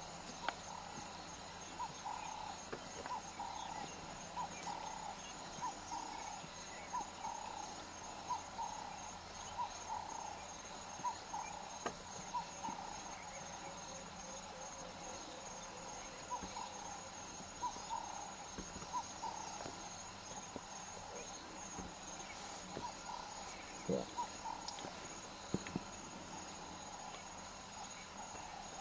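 Insects chirping: a steady high trill with repeated short lower chirps, one or two a second, and a few soft clicks near the end.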